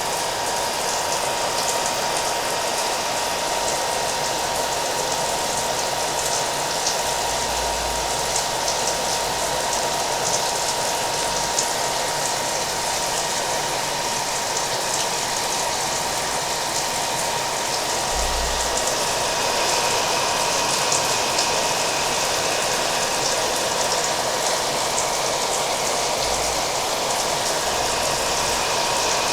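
A hair dryer running steadily, its motor whine holding one pitch, mixed with the steady hiss of falling rain.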